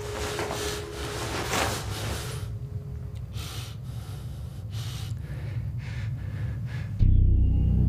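A man breathing hard in ragged gasps, a string of separate rushes of breath, thick at first and then more spaced out. Near the end loud low music cuts in suddenly.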